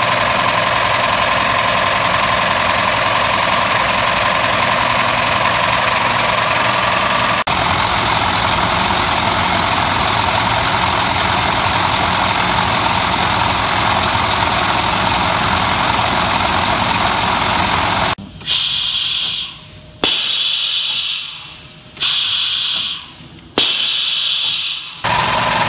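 Plastic sheet grinder with a pull-roll feed running, a steady mechanical drone with a hum. Near the end the drone drops away and four hisses of compressed air follow one after another, about a second and a half each, from the pull roll's pneumatic cylinder.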